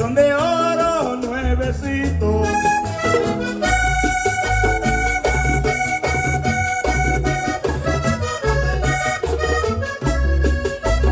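Live Latin band music led by a button accordion playing held notes and chords over a pulsing bass beat. A voice sings a short phrase in the first second or so.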